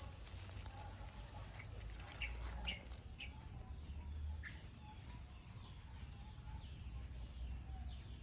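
Faint short bird chirps, several scattered through a few seconds, over a low steady rumble.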